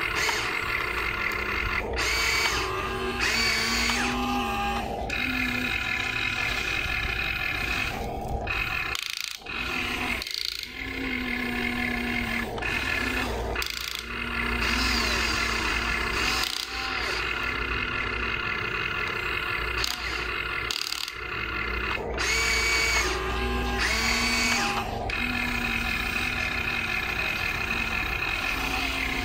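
Whine of a Huina RC excavator's electric motors as it digs sand and moves its boom, arm and bucket. The pitch shifts and steps every second or two as each motion starts and stops, with a few brief pauses.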